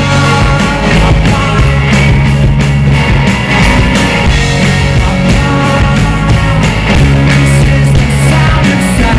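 Live rock band playing loudly, with singing over the band.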